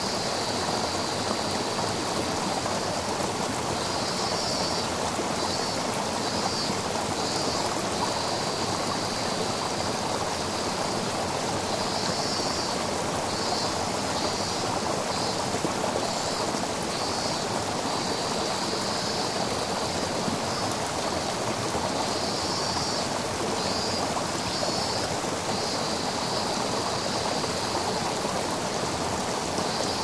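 Steady rush of a gently falling waterfall and its clear stream. A high trilling comes and goes in short spells above the water.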